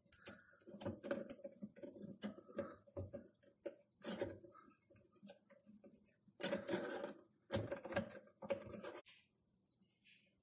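Kitchen sink basket strainer nut being spun by hand up the strainer's threaded body: quiet, irregular scraping and clicking of the threads, with a few longer rasps late on.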